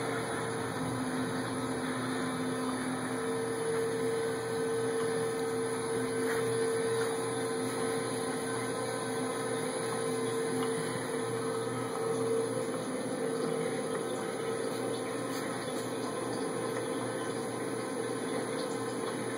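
1998 Vantage V12 heavy-duty engine lathe running with its spindle turning: a steady mechanical hum from the headstock drive, with a steady mid-pitched whine over it.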